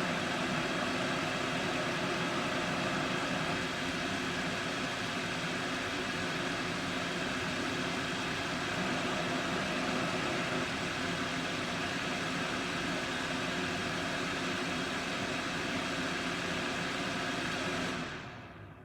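Vornado Velocity 3 space heater's fan blowing steadily: an even rushing noise with faint steady tones in it, fading out near the end.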